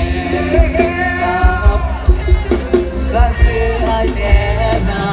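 Live Thai luk thung/mor lam band music through a loud PA system: a singer's voice over heavy bass and drum hits.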